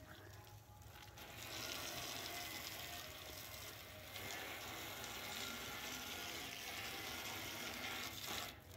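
Garden hose water stream spraying onto a stereo receiver's vented metal cover and the concrete around it: a steady hiss and spatter that starts about a second in and stops shortly before the end.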